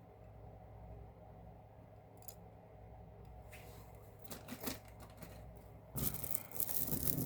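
A plastic bag crinkling and rustling as it is handled. It is faint and intermittent at first, then louder and denser for about the last second.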